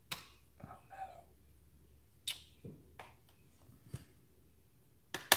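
Scattered light clicks and taps of small screws and computer parts being handled and fitted during reassembly, with a pair of sharper, louder clicks near the end.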